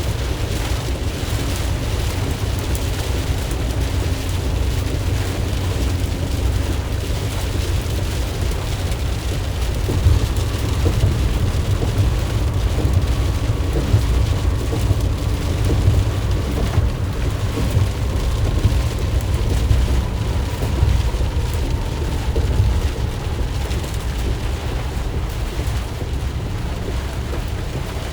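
Heavy rain pattering on a moving 2020 RAM Promaster van, over a steady low rumble of the van's engine and tyres on wet road. A faint whine falls slowly in pitch through the middle.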